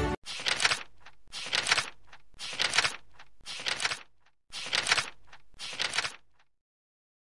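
Processing machinery running in a repeating cycle: a hissing clatter comes back about once a second, six times, then cuts off.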